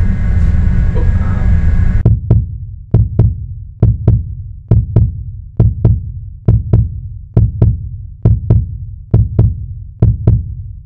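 Steady low room hum, then from about two seconds in a heartbeat sound effect: paired low thumps, lub-dub, repeating a little faster than once a second over the hum.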